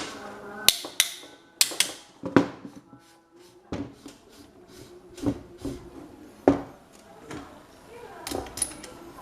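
Metal parts being handled, knocking and clinking: a series of irregular sharp taps, some with a brief ringing tail.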